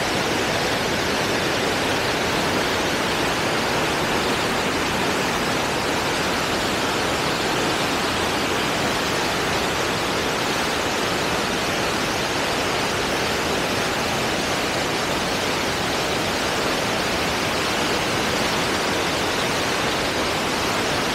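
Dam release: water forced through an open gate of Bustos Dam, churning into whitewater in the channel below with a steady, unbroken rushing noise.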